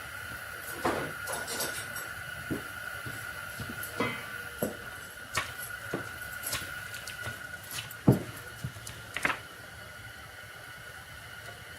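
Scattered clicks and clunks of tools being handled, as when rummaging for a wrench in a toolbox drawer, with a louder knock about eight seconds in. A faint steady high tone runs underneath.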